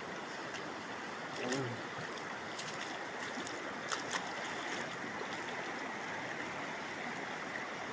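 Rain-swollen hill stream rushing steadily over stones and gravel.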